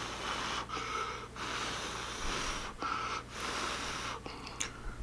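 Airy mouth and breath sounds of a man eating ramen noodles close to the microphone: about five long hissing breaths at the noodles, with short breaks between.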